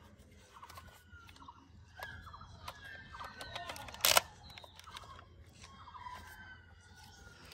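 Light clicks and rattles of a plastic toy assault rifle being handled while a foregrip is fitted to it, with one sharp snap about four seconds in.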